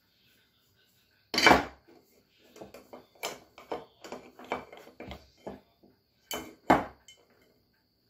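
A polishing cloth rubs the aluminum motor housing of a 1923 GE Premier Junior vacuum cleaner in quick strokes, with clatters of the metal housing being handled. The loudest clatters come about a second and a half in and twice near the end.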